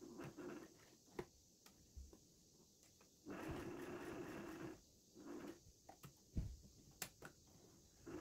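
Household sewing machine stitching through denim in short runs: one run of about a second and a half in the middle, then a brief second run, with a few light clicks in between.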